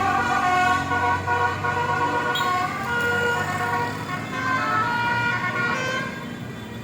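Basuri multi-tone 'telolet' vehicle horn playing a tune of short stepped notes, getting quieter about six seconds in.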